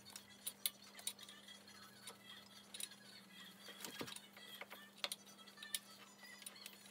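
Faint, scattered small metallic clicks and taps as a carburetor mounting bolt is started by hand into the intake manifold of a 125 cc ATV engine.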